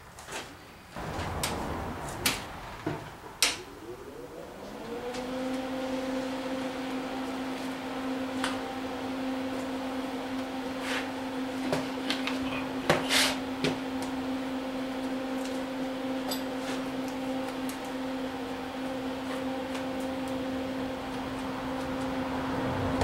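A few clicks and knocks of handling, then an electric motor spins up about four seconds in, its pitch rising briefly, and runs at a steady hum.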